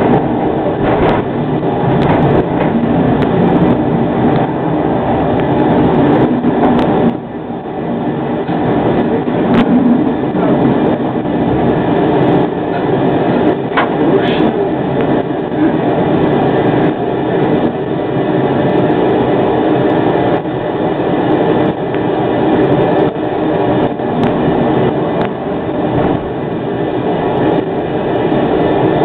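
Škoda 03T "Anitra" low-floor tram running along street track, heard from the driver's cab: a steady rumble of wheels on rails and traction drive, with a few sharp clicks from the track. The noise dips briefly about seven seconds in, then builds again.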